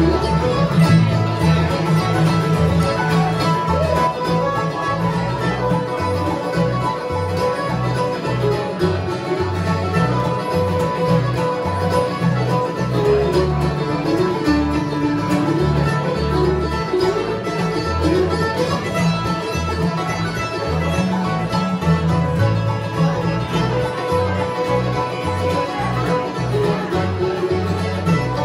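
Live acoustic bluegrass band playing an instrumental tune: upright bass, mandolin, acoustic guitar, banjo and piano accordion together, with a steady bass line under the melody.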